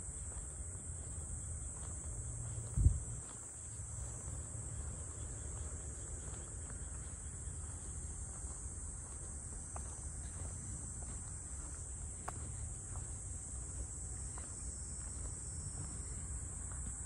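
A steady, high-pitched insect chorus over a low rumble, with one sharp thump about three seconds in and a few faint clicks.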